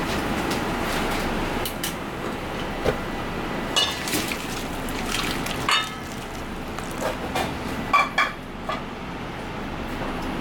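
Hot water poured from a metal saucepan into a stainless steel bowl of fish pieces, scalding them, with a few sharp metallic clinks of pan and bowl. The steady noise of a commercial kitchen range runs underneath.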